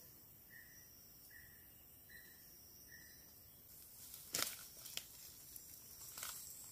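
Faint natural ambience: a steady high insect buzz and a short animal call repeating about once every 0.8 s, both stopping about three and a half seconds in. A few sharp clicks or knocks follow near the end.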